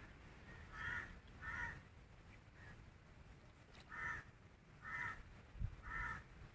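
A bird calling outdoors: five short calls, two close together about a second in, then three more about a second apart near the end. A single dull thump falls between the last two calls.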